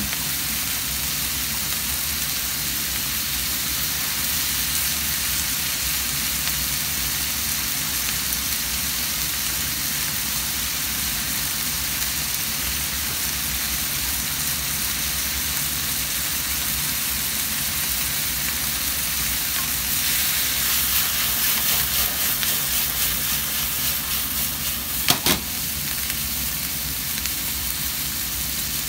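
Pork offal and green onions sizzling in a nonstick frying pan as they are stirred with chopsticks: a steady frying hiss that grows louder and more crackly for a few seconds near the end, with one sharp tap just before it settles again.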